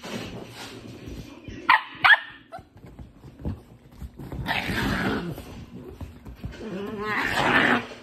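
Small dogs play-fighting: two sharp yaps a little under two seconds in, then longer rough growling with a wavering pitch, twice.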